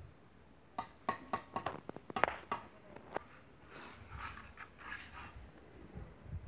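Steel mason's trowel tapping bricks: a quick series of about ten sharp, ringing taps, followed by a few rougher scraping sounds.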